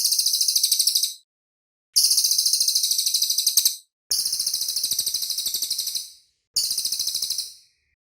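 A cililin songbird singing four rapid, high-pitched trills of quickly repeated notes, each lasting one to two seconds with short pauses between.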